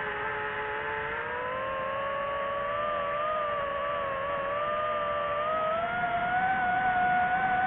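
DJI FPV drone's motors and propellers whining steadily, the pitch drifting slowly with the throttle and rising a little near the end.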